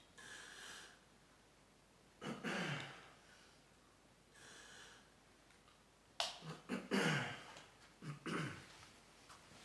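Someone moving about in a quiet room: a few short rustles and creaks, loudest a little over two seconds in and again from about six to eight and a half seconds in.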